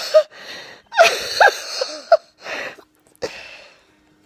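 A person's fit of breathy giggling broken by sharp hiccup-like catches of breath, in several short bursts. It trails off a little over three seconds in.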